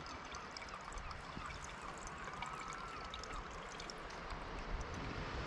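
Water trickling from a Sawyer Mini squeeze filter into a container as the bottle is squeezed, a steady pour with many small drips and splashes.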